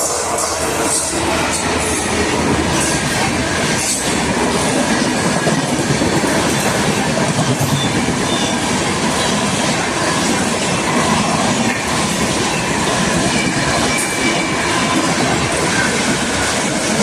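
Express train running through a station at speed: a loud, steady rush of wheels on rails, with faint thin squeals and occasional clacks over the rail joints.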